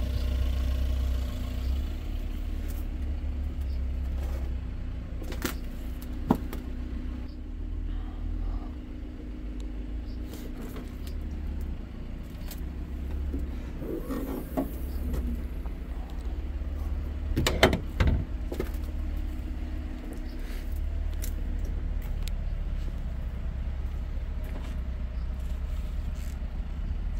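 Cadillac Escalade's 6.2-litre V8 idling steadily, with a few sharp clicks and knocks over it, the loudest a pair about two-thirds of the way in.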